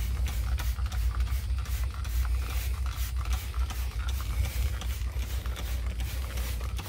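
Hand-held trigger spray bottle being pumped again and again: a quick run of short clicks and spritzes of cleaner, over a low steady hum.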